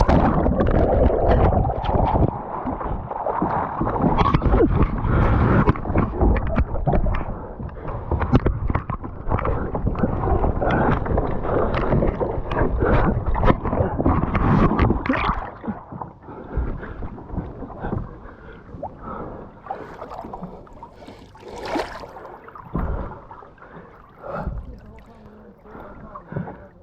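Water splashing and churning around a capsized kayak as the kayaker struggles in the lake, with gurgling on the microphone. Heavy and continuous for about fifteen seconds, then dying down to scattered splashes.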